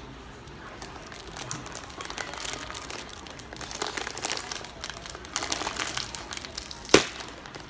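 Plastic crisp packet crinkling as it is handled and opened, in dense bursts of rustling, with one sharp snap near the end.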